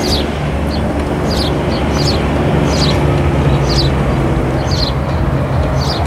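A vehicle engine running steadily with a low hum, and a small bird chirping about once a second above it.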